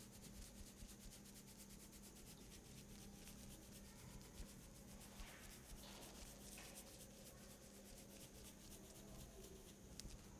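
Faint, quick and even rubbing of hands working over skin and hair in a massage, with a low steady hum underneath.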